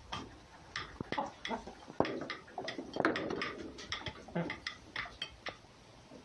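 A red fox and a cat moving against each other close to the microphone: a run of irregular light clicks and taps, a few a second, with a few faint short animal calls.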